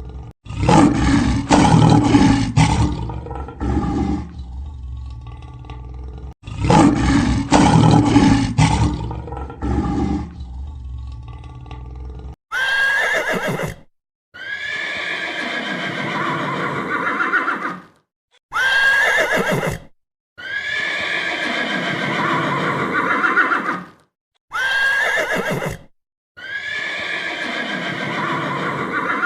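A deep animal roar, the same call played twice, then a horse whinnying over and over in identical repeats: a short neigh followed by a longer one, about every six seconds.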